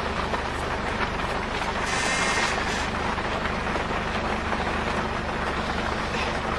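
Steady low hum of an idling vehicle engine under an even noisy wash, with a brief hiss about two seconds in.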